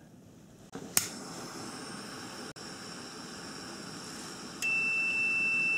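Butane mini blowtorch clicks alight about a second in, then hisses steadily as it heats a new radiator cooling fan switch. Near the end a digital multimeter's continuity beep starts as one steady high tone: the heated thermo switch has closed, which shows the switch is good.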